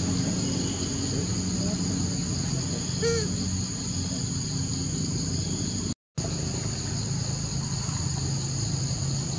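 Steady high-pitched drone of calling insects with a low steady hum underneath. A single short, arched call cuts through about three seconds in, and the sound drops out completely for a moment near six seconds.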